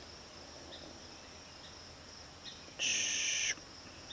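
Insects droning steadily at a high pitch. A little under three seconds in, a short hissing burst of under a second, louder than the drone, starts and stops abruptly.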